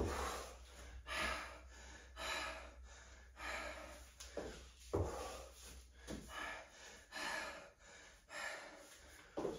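A woman breathing hard from exertion, a noisy breath about once a second in time with dumbbell lunge-and-press repetitions.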